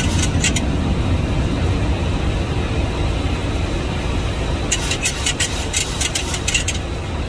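Steady rushing noise on the flight deck of a Boeing 737 MAX 8 in flight on approach: airflow and engine noise. A run of rapid crackling clicks comes in near the end.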